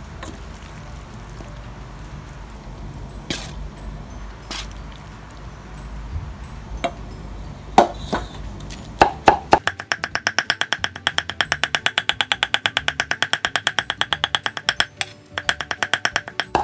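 A few scattered knocks, then a steel cleaver chopping fast and steadily on a thick wooden chopping block, about seven strokes a second, with a short break near the end. It is mincing grilled fish flesh fine for laab.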